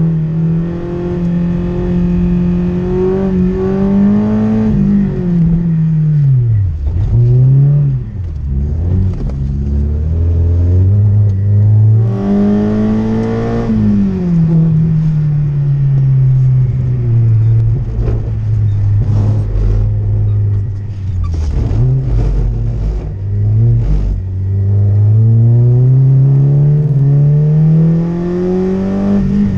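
Peugeot 106 Rallye's four-cylinder petrol engine heard from inside the cabin, revving up and down through the gears under hard driving. The revs climb and fall several times, dropping sharply about seven seconds in and building in a long steady climb near the end.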